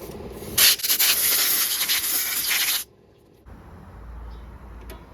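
A blast of compressed air from an airline blow gun, a loud hiss lasting about two seconds that starts and cuts off suddenly, used to blow dirt out of the motorcycle engine parts.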